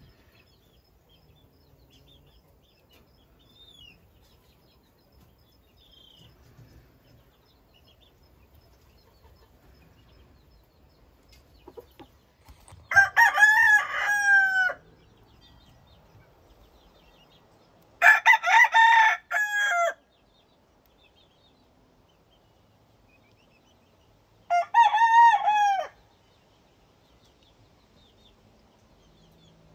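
JJ Kelso game rooster crowing three times, each crow about a second and a half to two seconds long, spaced about five seconds apart. Before the first crow there are only faint high chirps.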